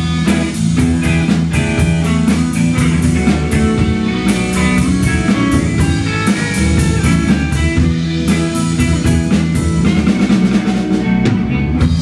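Live rhythm-and-blues band playing: a drum kit keeps a steady beat under electric bass and electric guitars.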